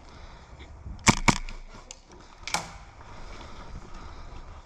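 Airsoft gun firing: two sharp shots a fifth of a second apart about a second in, then a softer third shot about a second and a half later.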